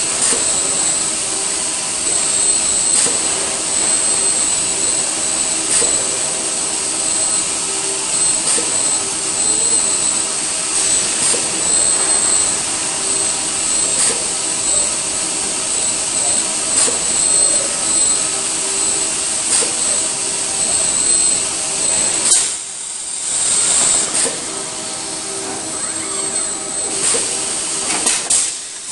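Steady loud machinery noise of a car-body assembly line, with industrial robots and pneumatic clamping fixtures at work, and a steady high whine running through it. Short sharp sounds break in now and then, and the noise drops briefly about three-quarters of the way through.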